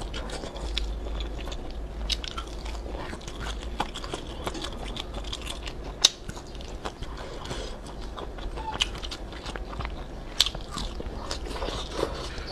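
Close-miked biting and chewing of air-fryer-roasted sausage: a run of small crunches and mouth clicks, with a sharper bite about halfway through and another near the end.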